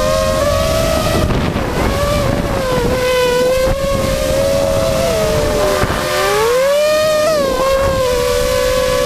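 A motor or engine running at high speed with a steady whine. Its pitch sags about five seconds in, dips further and climbs back about seven seconds in, then holds steady again, with rushing wind noise on the microphone throughout.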